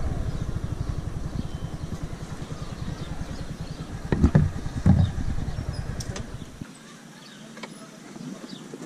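Small motor scooter engine running at low speed, which cuts off suddenly about two-thirds of the way through as it is switched off. There are two thumps a little after the midpoint.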